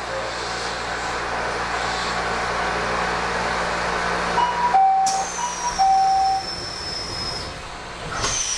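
Inside a Kobe Electric Railway train car standing at a station: a steady rumble of the car, then a high-low two-note chime sounds twice about halfway through, signalling the doors closing. A high electric whine from the traction equipment then starts and slowly falls in pitch as the train begins to pull away, and a second falling whine begins near the end.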